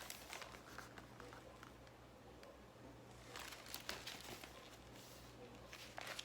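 Near silence: a steady low room hum with faint paper rustles and a few light clicks, the pages of a picture book being handled and turned.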